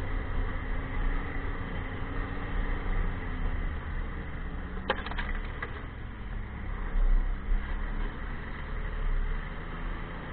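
Snowmobile engine running steadily under a low rumble and track and wind noise, heard from on board while riding. A quick rattle of sharp clicks comes about halfway through.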